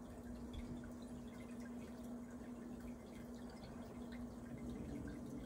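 Aquarium air stone bubbling, with small drip-like pops and trickles over a steady low hum.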